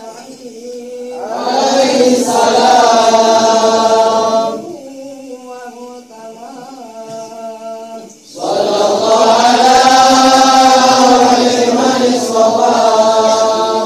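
Arabic maulid text chanted in a melodic recitation. A solo voice sings slow held lines, and twice a fuller group of voices takes up the chant much louder: about a second in, and again a little past halfway.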